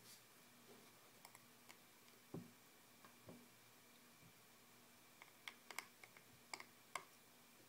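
Near silence over a faint electrical hum, broken by scattered small clicks of a screwdriver and parts being handled on an iPhone 4S, more frequent in the second half.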